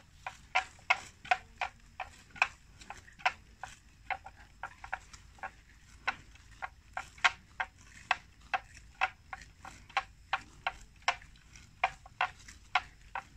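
Water buffalo grazing: quick, irregular snapping clicks of grass being torn off, several a second.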